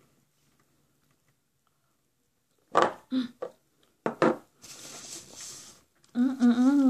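Close-miked eating sounds: a few loud wet mouth smacks while chewing a mouthful of tortilla and potatoes, starting about three seconds in, then a soft hiss. Near the end comes a long closed-mouth "mmm" hum of enjoyment.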